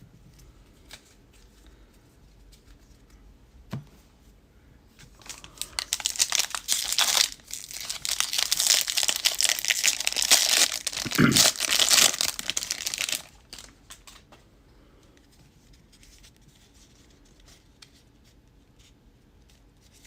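A trading-card pack's wrapper being torn open and crinkled: a run of tearing and crackling that starts about five seconds in and lasts about eight seconds, after a small knock.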